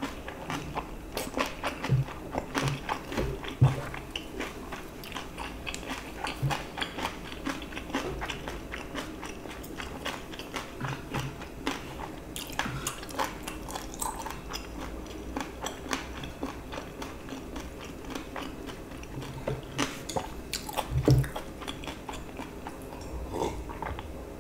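Close-miked chewing and mouth sounds of a person eating fried rice with stir-fried webfoot octopus and pork belly: a dense run of wet smacks and clicks. Chopsticks now and then scrape and tap against the metal pan.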